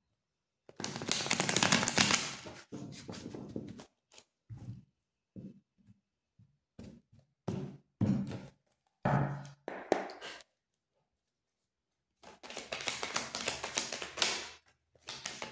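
Osho Zen Tarot cards being shuffled by hand: irregular bursts of riffling and tapping, a long stretch of shuffling near the start, then shorter bursts, a pause of a couple of seconds about ten seconds in, and another long stretch near the end.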